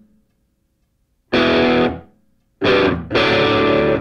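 Music: distorted electric guitar chords played in a stop-start pattern. It begins with about a second of silence, then one short chord rings and fades, and a longer chord starts near the three-second mark.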